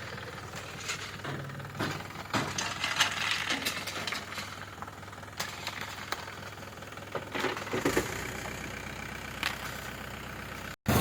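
A heavy engine running steadily at low revs, with scattered metal clanks and rattles over it. The sound cuts out abruptly near the end.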